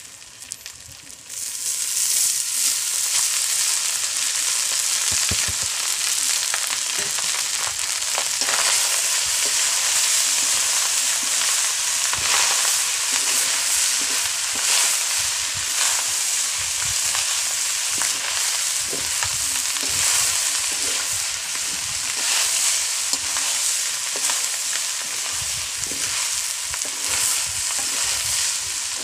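Chicken masala and cooked basmati rice sizzling in oil in a kadai, stirred and scraped with a metal ladle. The sizzling comes up loudly about a second in and holds steady, with many small scraping clicks.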